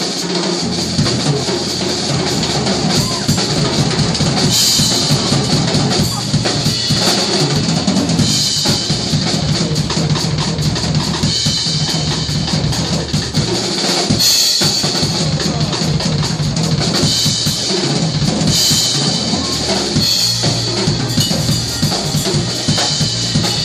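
Acoustic drum kit played solo in 7/8: dense strokes across snare, toms and bass drum, with cymbal crashes every few seconds.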